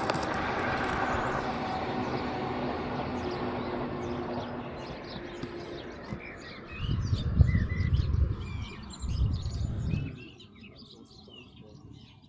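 An aircraft engine drones overhead and fades away over the first half. Small birds chirp from about halfway in. Wind gusts buffet the microphone for a few seconds in between, and these are the loudest sounds.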